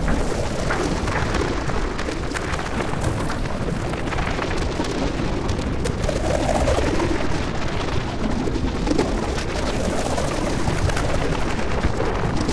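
Dense, steady rumbling noise with a fine crackle running through it: an electroacoustic noise texture.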